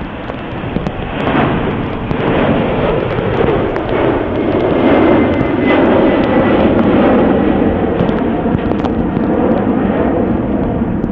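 Airbus A300-600ST Beluga's twin General Electric CF6-80C2 turbofans at take-off power as it climbs out, a loud jet rumble that builds over the first couple of seconds and eases slightly near the end. Scattered sharp ticks of hail striking the microphone run through it.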